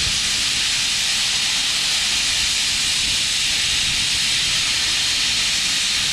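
Plasma cutter gouging (scarfing) out a weld in a metal butt joint: the plasma arc and air jet make a steady hiss that holds even throughout.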